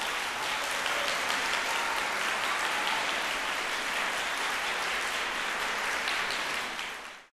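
Audience applause, fading out over the last second or so.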